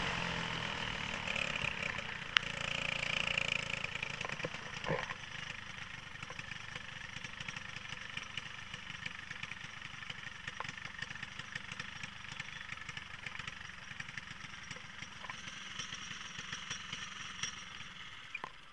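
Racing kart's single-cylinder Briggs & Stratton Animal four-stroke engine running at low revs as the kart slows into the pits after the race. It cuts off near the end. There is a sharp click about two seconds in.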